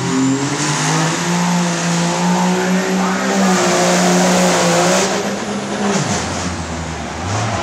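Turbo diesel pickup truck engine from the 2.8 pro stock diesel pulling class, at full throttle dragging the pulling sled, its pitch held high with tire noise. About six seconds in the revs drop sharply as the truck lets off at the end of the run.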